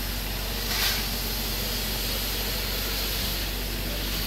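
Fire hose spraying water onto burning waste bins: a steady hiss of spray and steam, with a brief louder surge about a second in, over a low steady hum.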